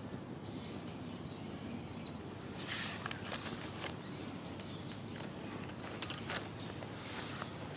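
Wooden chopsticks burning in a small aluminium-can fire pit, crackling in short clusters of snaps around the middle and again near the end, over a steady low background noise.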